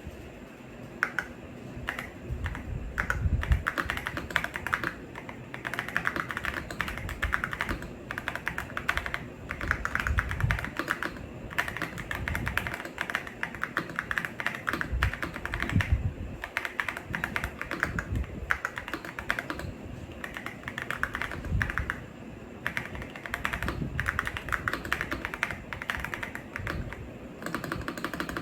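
Fast typing on a YUNZII X71 gasket-mounted mechanical keyboard with Crystal Ice switches and transparent keycaps: a dense, continuous run of keystrokes, broken by a few short pauses.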